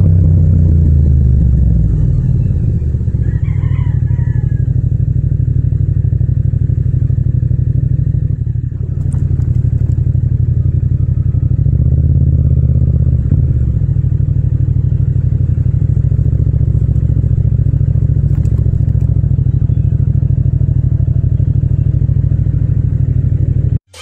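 Yamaha MT-07's parallel-twin engine at low revs, settling after a drop in revs into a steady idle that holds for most of the time. The sound cuts off suddenly near the end.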